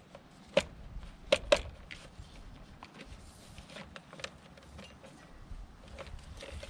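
Metal clicks and taps of a Minerallac offset conduit strap being fitted by hand around conduit on a steel pipe: three sharp clicks in the first two seconds, then lighter ticks and rattles, over a low rumble.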